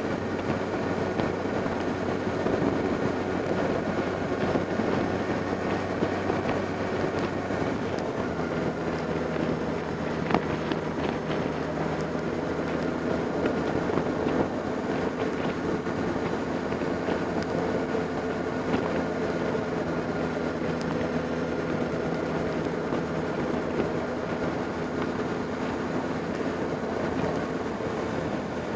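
Motorcycle engine running steadily while riding along at road speed, with wind and tyre noise over the microphone; the engine note changes about eight seconds in.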